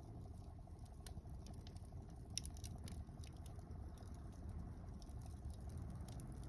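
Wood fire of mixed softwood and hardwood burning: a steady low rumble of flames with scattered crackles and sharp pops, the loudest pops about two and a half seconds in.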